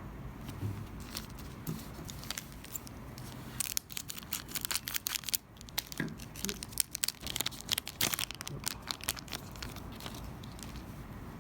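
A trading card pack's wrapper being torn open and crinkled, with a dense run of sharp crackles from about three and a half seconds in until near the end.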